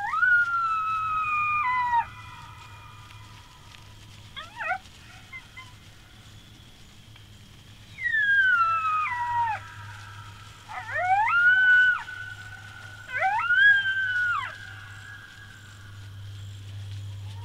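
Coyotes howling: several long howls that slide up and down in pitch, with a short burst of yips about four to five seconds in.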